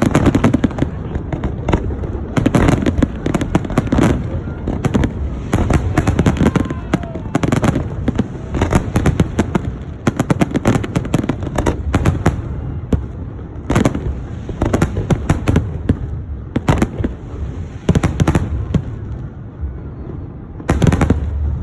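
Fireworks going off in rapid clusters of bangs and crackles. The volleys come thick and close together at first, then thin out into separate bursts a second or two apart.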